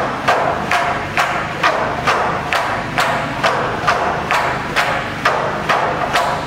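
Bamboo poles clapped together in a steady rhythm for a traditional bamboo dance: sharp wooden knocks, evenly spaced at about two a second.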